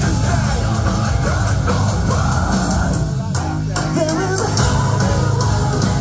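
Metalcore band playing live and loud, with guitars and vocals. The top of the sound drops away for under a second about three seconds in, then a sung line comes in.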